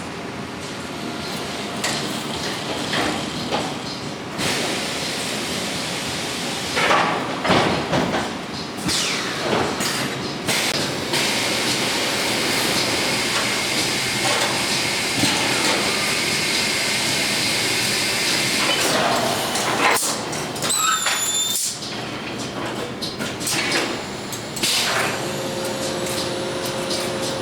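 Automatic multi-spot body welding machine for 1980s Corolla main bodies running its cycle. Jigs and clamps clank and air hisses in repeated bursts, with a long steady hiss in the middle and a short rising whistle about 21 seconds in.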